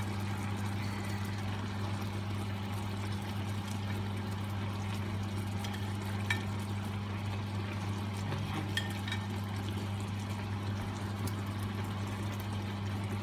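Coconut-milk sauce simmering in a skillet, a steady bubbling hiss over a low hum, with a couple of light clicks as fried fish fillets are laid into the pan with a spatula.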